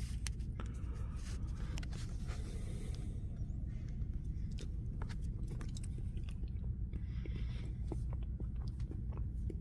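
A person biting and chewing a mouthful of the chocolate half of a fridge-cold black and white cake, with small wet clicks and crackles. A steady low hum runs underneath.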